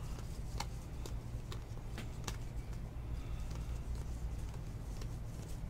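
Baseball trading cards being flipped through by hand, with a few light clicks as cards are slid across the stack, over a low steady hum.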